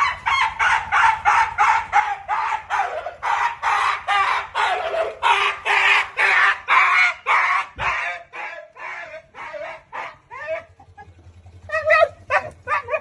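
An animal crying out rapidly and loudly, about four to five cries a second, for some eight seconds, then fewer, quieter calls.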